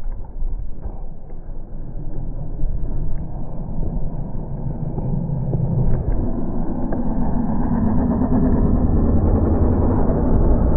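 Utility side-by-side's engine running under load as it tows ice-fishing houses across the ice; the engine note rises and grows louder over the last few seconds.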